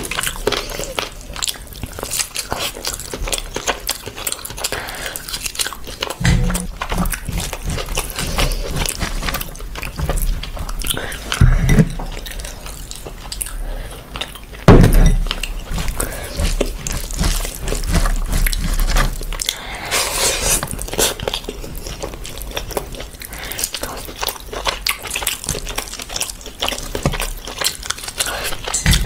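Close-miked hand-eating sounds: fingers mixing rice and curry gravy on a platter, with soft wet squishing and crackling throughout. About halfway there is a sharp knock, the loudest sound, as the glass gravy bowl is handled over the platter. Near the end there is wet chewing of a mouthful.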